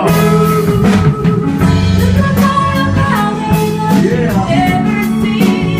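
Live band music with a steady drum-kit beat between lines of a Japanese rap song, with a gliding melodic voice or lead line over it.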